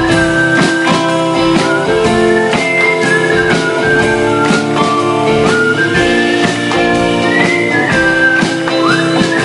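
Live rock band playing an instrumental passage: guitars over a steady drum beat, with a high lead line sliding between notes.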